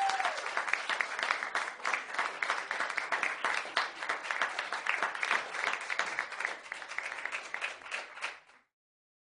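Audience applause, many hands clapping, a sound effect that cuts off suddenly near the end.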